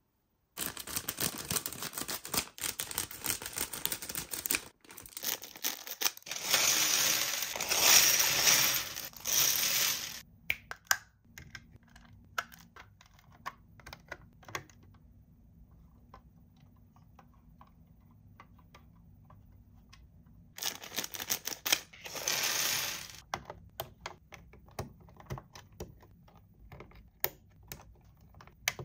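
Toy packaging being handled and opened: rustling and tearing in two loud spells, with scattered light clicks and taps of plastic pieces between them.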